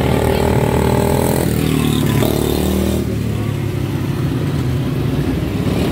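Several quarter midget race cars' small single-cylinder Briggs & Stratton Animal engines running together. One engine's higher note drops in pitch about a second and a half in, over a steady lower drone from the others.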